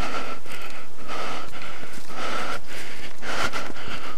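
Heavy, hard breathing close to a body-worn camera's microphone, mixed with loud rustling of clothing and gear as the wearer moves quickly on foot; the noise swells and eases irregularly.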